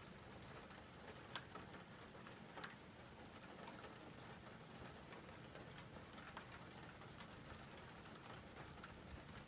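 Faint rain falling, with scattered light drop ticks and a couple of slightly louder drips about a second and a half and two and a half seconds in.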